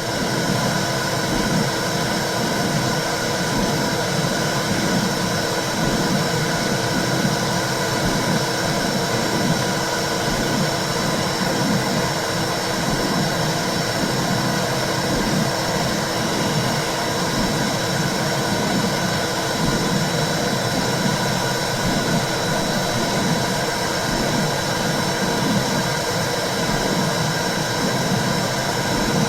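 Womb sound for soothing a baby: a steady, dense whooshing noise with a low, uneven pulsing beneath it, like blood flow inside the uterus.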